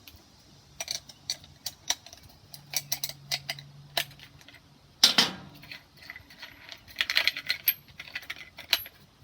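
Scattered sharp metallic clicks and clinks of metal parts and tools being handled, with a louder clunk about five seconds in. No grinder motor is running.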